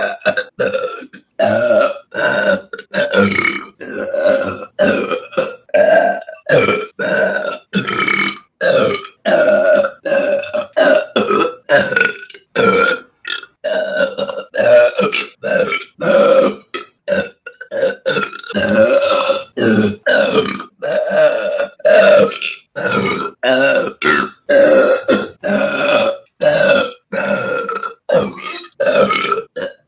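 A woman burping loudly over and over, dozens of short burps cut one after another with brief gaps between them, more than one a second.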